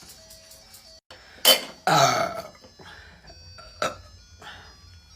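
A woman burps loudly about a second and a half in, a single voiced belch that drops in pitch as it goes.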